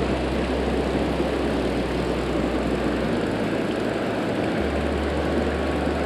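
Shallow mountain stream rushing over rocks: a loud, steady rush of water.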